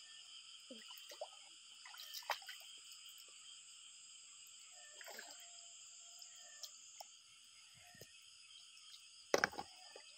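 Steady, high-pitched chorus of insects droning continuously, with a few brief splashes of water in a shallow stream, the loudest near the end.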